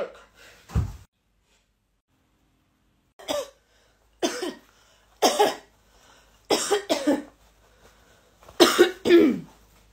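A woman retching and gagging, as if about to be sick: a string of about seven short, harsh coughing heaves, spaced roughly a second apart, after a brief low thump about a second in.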